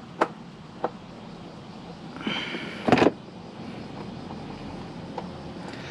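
Plastic clicks and knocks from a Honda NC700X's fairing panels and clips being worked loose by hand: two sharp clicks near the start, a brief scrape about two seconds in, then a loud clatter of knocks about three seconds in.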